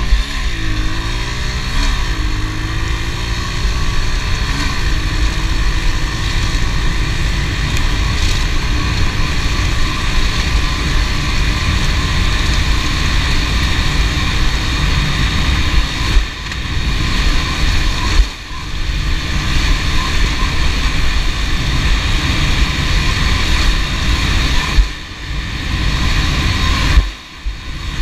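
Honda CRF110 pit bike's small single-cylinder four-stroke engine riding under way. The revs climb and fall twice in the first couple of seconds as it shifts up, then it runs steadily, with the note dropping briefly a few times later on as the throttle is eased.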